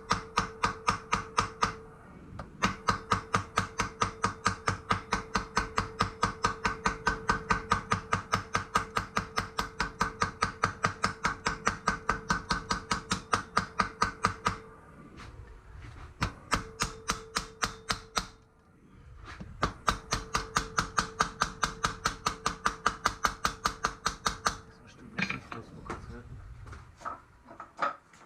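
Hammer striking fast and evenly, about five blows a second, peening a rivet on a metal breastplate, the plate ringing under each blow; several long runs of blows with short pauses between, then a few scattered knocks near the end.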